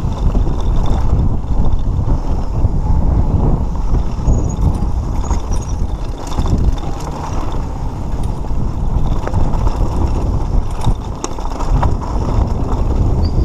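Mountain bike rolling fast down a rocky dirt trail: a continuous rumble of knobby tyres over gravel and wind buffeting the microphone, with scattered clicks and rattles from the bike over the bumps.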